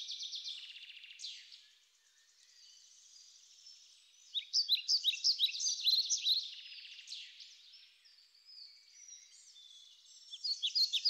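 Small birds chirping and twittering in quick rising and falling calls, busiest in the middle and again near the end. There is nothing low in the sound, so it comes across thin.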